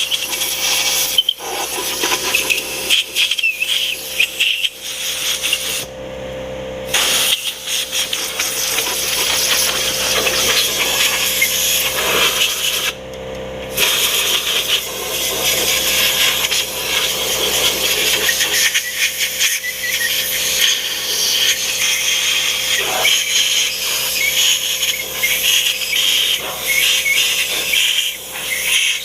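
Pressure washer spraying water onto a cast-iron Ford FE V8 engine block, a loud steady hiss of spray over the hum of the washer's pump. The spray stops briefly twice, about six and thirteen seconds in, while the pump keeps humming.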